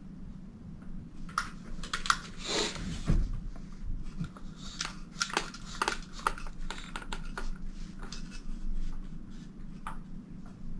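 Irregular small clicks and scrapes of metal parts being handled as a flash hider is threaded onto an airsoft rifle's barrel, with a louder scrape about two and a half seconds in. A steady low hum runs underneath.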